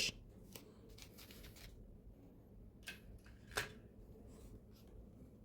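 Faint handling noises of a motorcycle instrument cluster being picked up and moved: a few light clicks, the sharpest about three and a half seconds in, over quiet room hiss.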